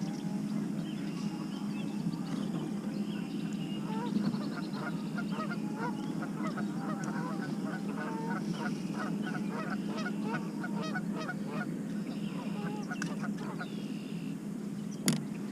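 Geese honking in a rapid, overlapping series, densest in the middle, over a steady low hum. A single sharp click near the end.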